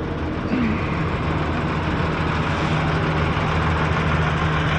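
Dump truck's diesel engine idling steadily.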